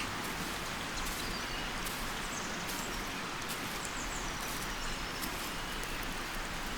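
Forest ambience: a steady hiss of leaves rustling in the wind, with a few faint, short bird chirps and scattered small clicks.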